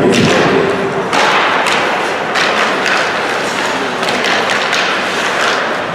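Youth ice hockey play heard in a rink: repeated thuds and clacks of puck, sticks and players against the boards over a haze of skate scraping and arena noise. Arena music trails off in the first second.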